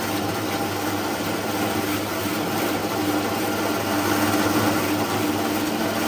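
Stainless-steel 23-blade fish slicing machine running steadily, belt-driven, chopping fish pieces fed through a second time to cut them smaller.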